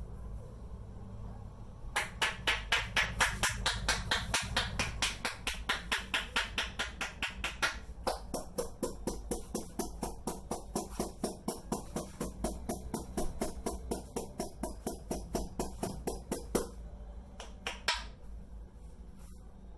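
Rhythmic percussive tapping of a masseur's hands on the head in an Indian head massage, about four or five sharp slaps a second. The slaps turn less crisp about halfway through, and after a few scattered taps they stop.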